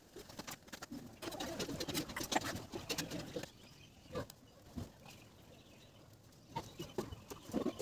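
Small clicks and rustling of insulated wires being handled and twisted, with birds calling in the background.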